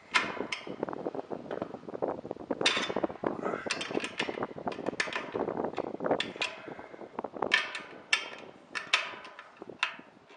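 Irregular metallic clicks, taps and clanks of hardware being handled on a satellite dish mount as its pitch is adjusted and its bolts worked.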